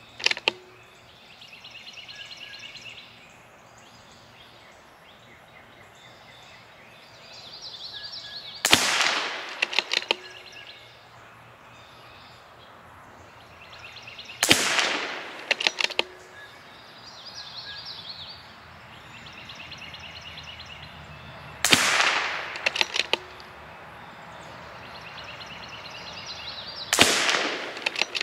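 A .22 LR bolt-action rifle, a CZ 457 MTR with a Lilja barrel, firing ELEY Match rounds: four single shots about six seconds apart, each followed about a second later by a quick run of clicks as the bolt is worked. A similar run of clicks comes right at the start, and birds chirp faintly between shots.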